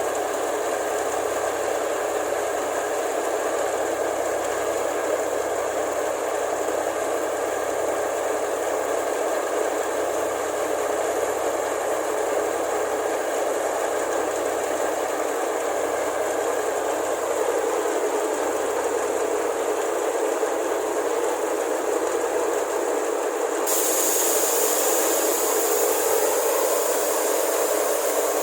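Rice combine harvester's engine running hard with its loud exhaust, a steady mechanical drone with rattling. Its pitch sags and climbs back again about two-thirds of the way through, and a higher hiss joins near the end.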